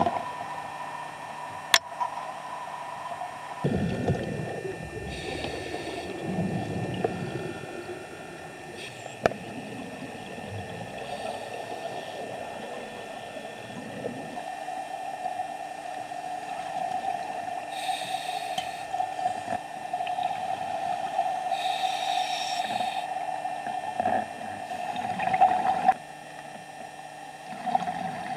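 Scuba diver breathing through a regulator underwater. There are a few hissing inhalations about a second long, separated by gurgling, bubbling exhalations. It is preceded for the first few seconds by steady hum and wind noise on the boat deck.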